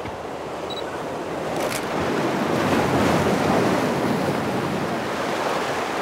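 Sea waves washing in over a rocky shore, swelling to a peak about halfway through and then easing off. A short click about a second and a half in.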